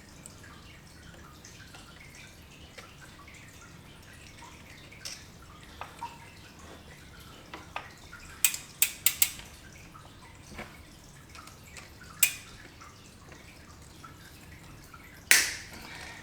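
Bicycle chain being taken apart by hand without a chain breaker: scattered small metal clicks and clinks, including a quick run of four about eight and a half seconds in and the loudest click near the end.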